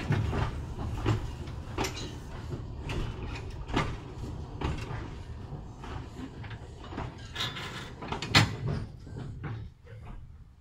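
Narrow-gauge railway carriage rolling slowly over the track, with a low rumble and irregular clanks and knocks from the wheels, couplings and coach body; the loudest clank comes a little past eight seconds, and the noise dies down near the end.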